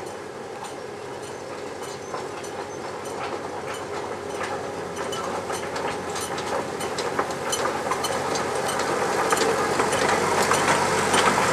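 Miniature narrow-gauge locomotive and its passenger carriages running towards the listener and passing close by, with wheels clicking on the track over a steady running rumble. The sound grows steadily louder as the train nears.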